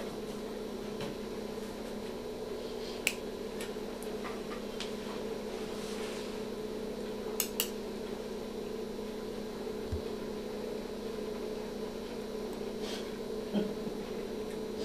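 A steady low hum of operating-room equipment with a few sharp metallic clicks of surgical instruments (needle holders and forceps) being handled while an incision is sutured; two of the clicks come close together about halfway through.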